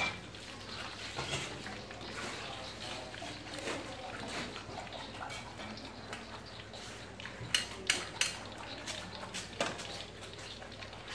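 Wire-mesh skimmer scraping and clinking against a metal wok as crisp-fried pomelo leaves are scooped out of hot oil and drained, over a light hiss from the oil. A few sharp metal clinks come about two-thirds of the way through.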